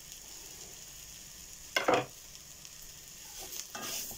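Flour-coated stewing beef frying in a pan, a steady sizzle, with a sharp clatter about two seconds in and a couple of knocks near the end.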